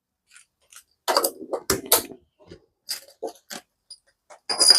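Snap-on hose connectors being pushed together and handled: a string of irregular sharp clicks and clacks, a few a second apart, with short handling noise between them.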